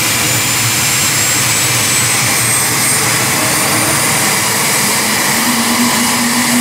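AH-64 Apache helicopter's twin turboshaft engines running at start-up with the main rotor turning slowly: a steady loud turbine rush under a high whine that slowly rises in pitch. A low steady hum joins about five seconds in.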